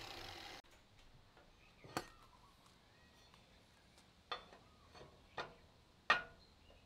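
An angle grinder's whir trails off and cuts off suddenly just after the start. Then about five sharp knocks and clacks of aluminium pieces as a mitered corner piece is set against the flatbed frame for a test fit, the loudest near the end.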